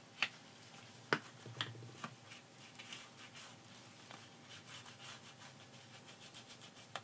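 Foam ink blending tool dabbing and rubbing ink onto the edges of a paper tag: faint scratchy rubbing, with a few light taps and clicks in the first two seconds.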